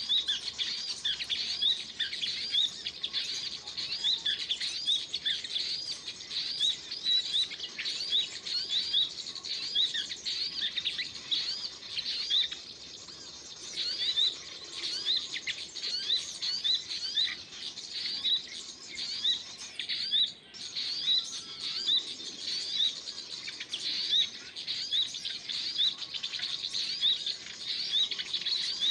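Small birds giving quick, high chirps over and over, about two to three a second, with short lulls about halfway and two-thirds of the way through.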